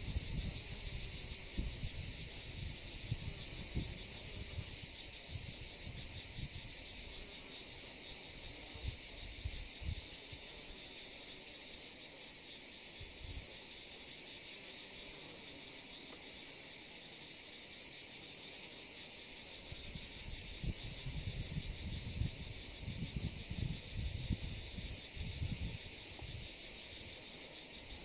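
Insects singing: a steady high chirring with a regular pulse about twice a second that never lets up. Low gusts of wind noise rise near the start and again after about twenty seconds.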